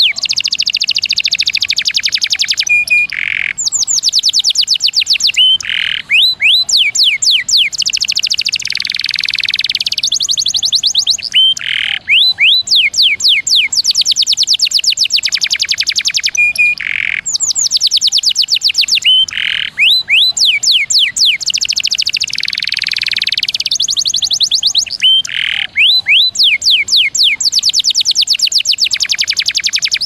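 Canary singing long, rapid trills of repeated rising notes, in phrases a few seconds long separated by short breaks, with a brief lower buzzy note between some phrases.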